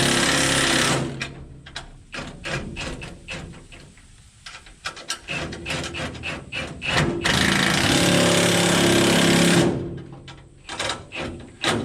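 Impact wrench running bolts: a long rattling burst that stops about a second in, a run of short clicks and knocks, then a second long burst from about seven to nearly ten seconds.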